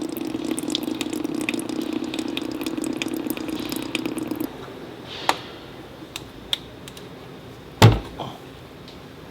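Transmission fluid draining from a CVT into a drain pan, a steady splashing stream that stops abruptly about four and a half seconds in. A few light clicks follow, then one loud clunk near the end.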